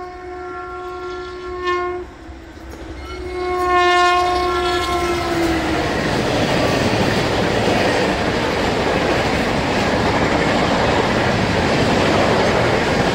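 Electric locomotive horn sounds twice, a blast of about two seconds and then a longer one that dips in pitch as it ends. The train then runs past close below with loud, steady rumbling wheel-on-rail noise.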